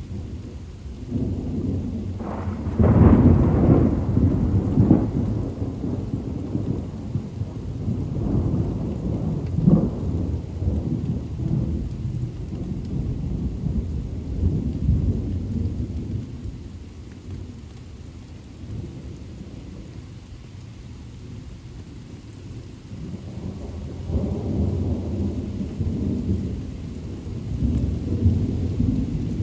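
Thunder rumbling and rolling over steady rain. The rumble is loudest a few seconds in, dies down past the middle and builds again near the end.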